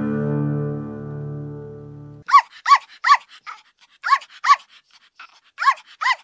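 Acoustic guitar music fades out over the first two seconds. Then a dog yips about seven times: short, high-pitched barks that come mostly in pairs.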